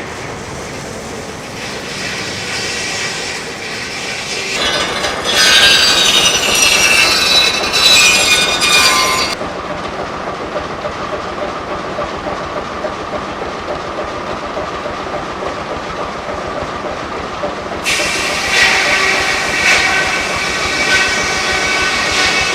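Steam-powered sawmill machinery running with a dense, rapid rattling clatter. A loud high-pitched squeal rises over it from about five to nine seconds in, and comes again from about eighteen seconds on.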